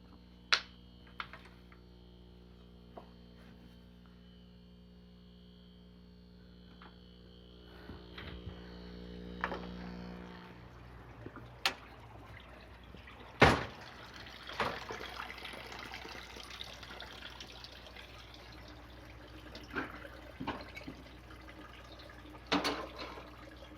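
A steady hum that stops about ten seconds in, then scattered knocks and a spell of running, trickling water, the loudest knock about halfway through.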